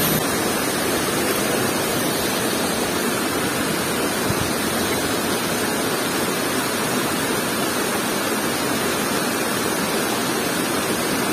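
Shallow river water rippling and running over rocks, a steady even rush.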